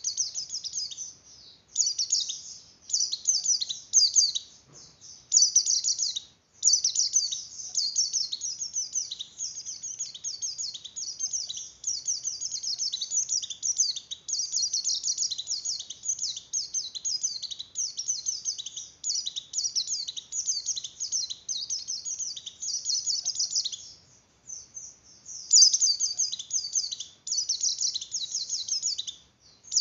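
Pleci (white-eye) in breeding condition singing a fast, high-pitched twittering song in long unbroken runs, broken by a few short pauses.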